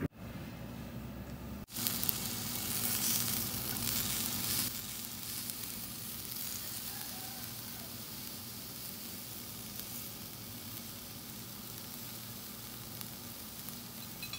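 Vegetables sizzling on a hot cast-iron grill pan: an even hiss that starts about two seconds in, is loudest for the next few seconds, then settles into a steady, quieter sizzle.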